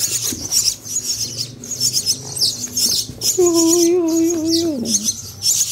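A boxful of songbird nestlings, mostly weaver chicks, begging with rapid high-pitched chirps, gaping for food. About halfway through, a man's voice holds one low drawn-out note for about a second and a half, dropping at the end.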